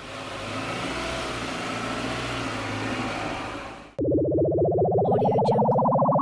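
An engine-like rumble with hiss for about four seconds, then a sudden rapidly pulsing engine buzz that rises steadily in pitch, like a rev, and cuts off abruptly.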